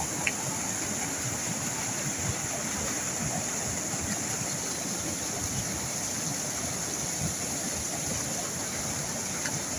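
Muddy floodwater pouring over a curved masonry dam spillway and churning into white water below, a steady rushing of water: the river running in flood after heavy rain.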